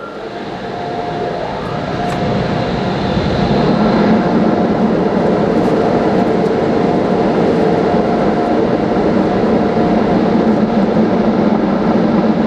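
Automatic car wash air dryer blowers running at full power over the car, heard from inside the cabin: the rushing builds over the first few seconds, then holds steady with a faint whine.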